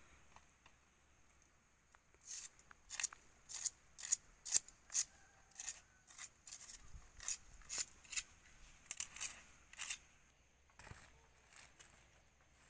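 A rolled woven mat rustling in short, crisp crackles, about one or two a second, as it is handled and unrolled, over a faint steady high hiss.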